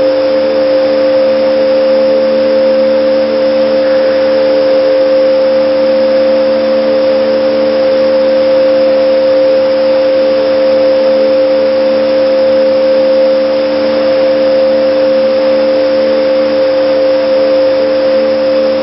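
Steady, loud machine hum from a shake table's hydraulic actuator system running, several held tones over an even hiss, unchanging throughout.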